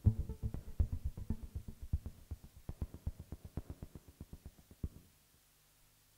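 Electronic music from a Korg MS2000B synthesizer: a rapid, even string of short percussive pulses, several a second, fading out and stopping about five seconds in. A faint low hum is left after the pulses stop.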